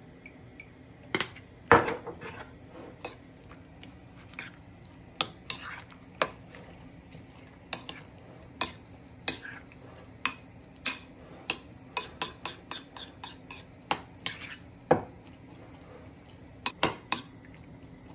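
Metal fork clinking and scraping against a ceramic bowl as yogurt raita is stirred: irregular sharp clinks, coming several a second in the middle, with one louder knock near the start.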